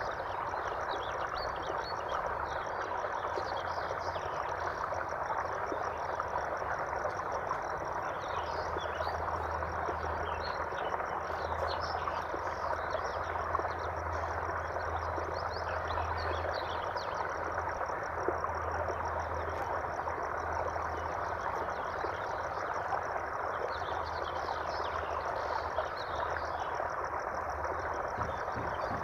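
Steadily running water, with a continuous high trill and scattered short chirps of small creatures above it. A low hum comes in for a stretch in the middle.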